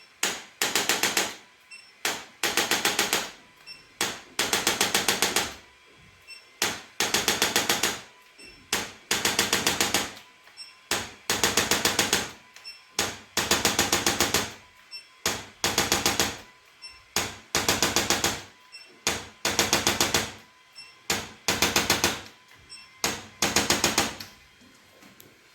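Bursts of rapid mechanical clicking, each about a second long, repeating roughly every two seconds.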